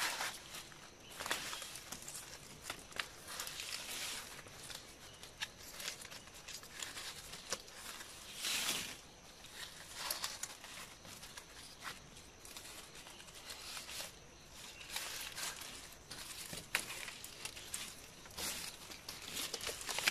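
Fresh Arenga palm leaflets rustling and crinkling as they are woven by hand into a mat, in uneven spurts with small clicks as the strips are pushed and pulled through each other. The loudest rustle comes about eight and a half seconds in.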